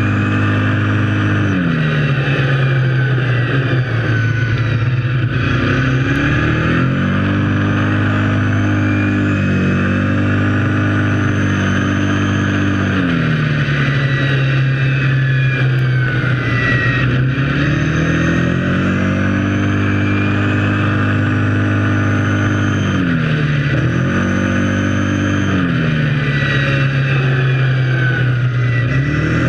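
Kawasaki KFX 700 quad's V-twin engine running under way, its pitch rising and falling several times as the throttle is opened and closed: higher revs at the start and for about five seconds near a third of the way in, dropping to a lower steady pitch in between, with short rises again near the end.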